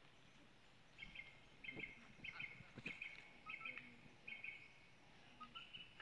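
A bird calling over and over: short, high chirping calls about every two-thirds of a second, starting about a second in. A couple of faint knocks come in the middle.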